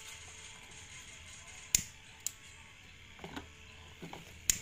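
Sharp clicks of a handheld gas lighter being struck three times: about two seconds in, again half a second later, and a louder one near the end. The flame is being used to heat-seal plastic-bag wrapping over a soldered wire joint as makeshift insulation.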